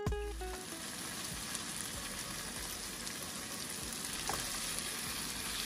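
Seasoned chicken drumsticks sizzling steadily as they fry in oil in a nonstick pan, with a wooden spoon turning the pieces about four seconds in.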